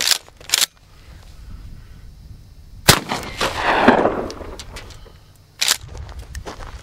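12-gauge Maverick 88 pump shotgun firing a single mini buckshot shell about three seconds in: one sharp blast with a rolling echo lasting over a second. Two sharp clacks near the start and another a little before the end are the pump action being worked.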